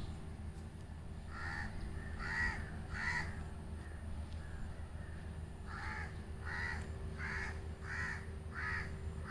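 A bird giving short, harsh calls: three in quick succession, a pause of a couple of seconds, then a run of six more about two-thirds of a second apart. A steady low hum runs underneath.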